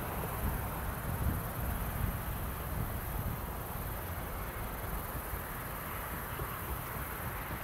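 Outdoor ambience: wind rumbling on the microphone, with a steady high-pitched chorus of insects in the background.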